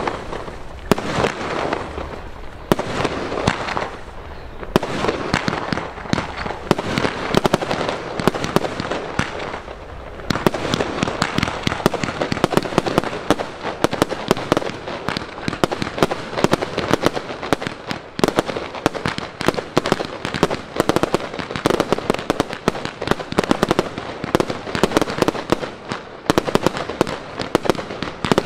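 Aerial fireworks going off in a rapid, unbroken run of bangs and crackling, thinner at first and much denser from about ten seconds in.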